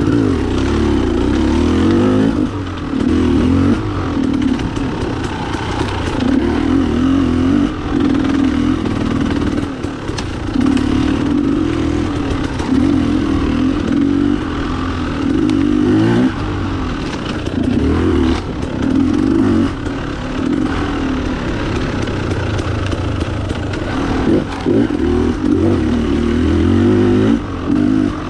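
Off-road enduro dirt bike engine revving hard and dropping back again and again as the throttle is worked on a trail, with occasional knocks.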